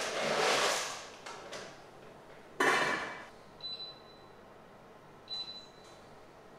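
A rushing, rustling noise that fades out within the first second, then a sharp metallic clatter about two and a half seconds in. After it come two short high beeps from a glass-top hob's touch controls as its settings are pressed.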